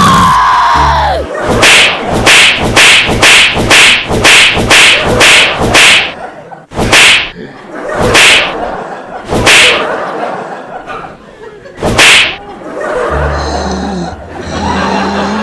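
A fast run of about a dozen sharp slap or whip-crack hits, about two and a half a second, then four more single hits spaced out over the following seconds.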